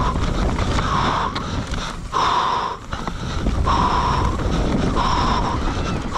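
Enduro rider's heavy, rhythmic breathing inside the helmet, a breath about every second and a half, over constant wind buffeting on the helmet-camera microphone and the low rumble of the dirt bike.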